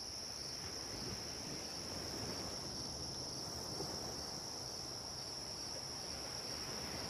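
Faint, steady cricket chorus, a constant high chirr that does not change, over a soft, even rushing noise underneath.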